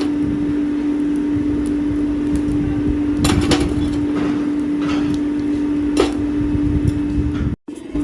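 Workshop machinery running with a steady hum and rumble, punctuated by a few sharp metal knocks, two close together about three seconds in and one about six seconds in. The sound cuts out briefly near the end.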